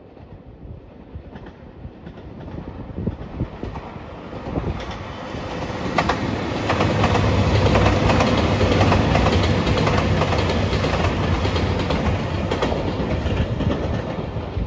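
JR Shikoku 2700 series diesel limited express train passing, its sound building from about four seconds in. It carries a low engine drone and the clickety-clack of wheels over rail joints.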